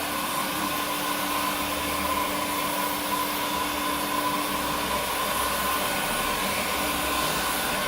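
Paint-stripping heat gun running steadily, blowing hot air over a honey frame to melt the wax cappings off the comb.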